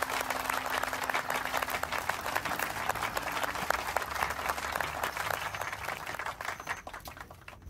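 Audience applauding after music ends, a dense patter of many hands clapping that fades away near the end.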